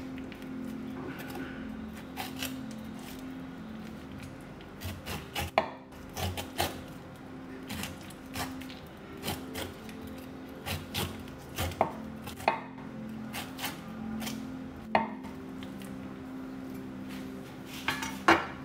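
Chef's knife cutting the rind off a pineapple on a wooden cutting board: irregular slicing strokes and sharp taps of the blade on the board, the loudest near the end. A faint steady low hum runs underneath.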